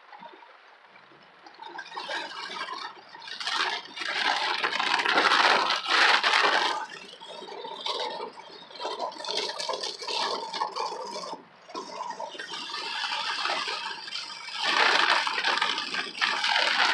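Heavy rain and road spray on a moving car, heard from inside the cabin, with tyres hissing on the wet road. It builds and eases in waves, loudest about four to seven seconds in and again near the end.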